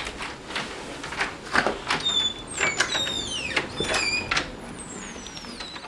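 A door being opened: clicks and knocks, then, from about two seconds in, a run of several high, falling squeaks.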